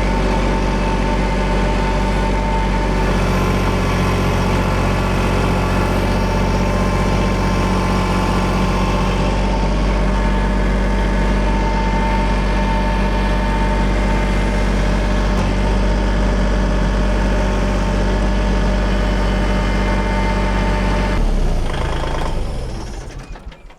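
Tractor engine running steadily, dying away over the last couple of seconds.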